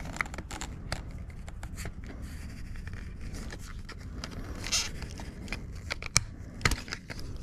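Scattered clicks, taps and scrapes of plastic steering-wheel trim parts being handled and pried apart by hand, with a longer scrape about five seconds in and two sharper knocks a little after six seconds.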